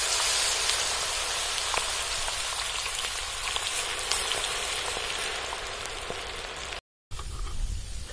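Masala-coated ivy gourd pieces deep-frying in hot oil in an iron kadai: a dense sizzling hiss with scattered crackles that slowly fades as the oil settles. A brief silent gap near the end, after which the sizzle is quieter.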